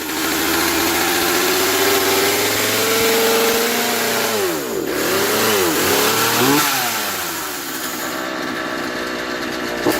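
A two-stroke gas chainsaw running and being revved: its pitch climbs over the first few seconds, drops and is blipped up and down twice around the middle, then settles lower and steadier. The previously non-running saw is running the best it's ever ran.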